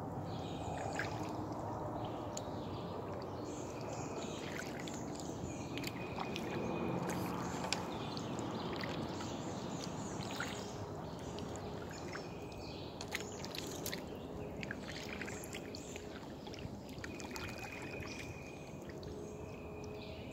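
Kayak paddle strokes in calm water: steady splashing and trickling from the blades, with scattered small drips and clicks.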